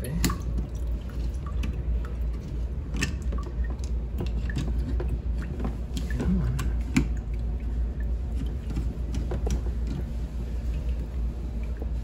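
Scattered light clicks and taps from hands working a metal two-valve hose splitter on a mop-sink faucet spout, over a steady low hum.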